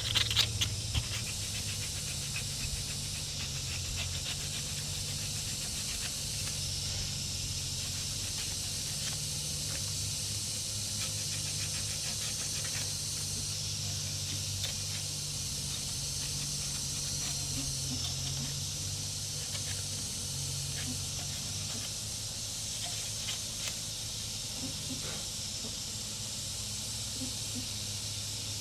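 Steady low machine hum with a constant high hiss, broken by a few light clicks.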